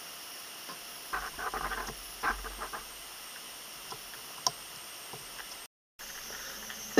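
Light handling noises from working on a small watch: a cluster of small clicks and rustles of fingers, paper and a small tool at the dial, then a single sharp click, over a steady faint hiss. The sound cuts out briefly near the end.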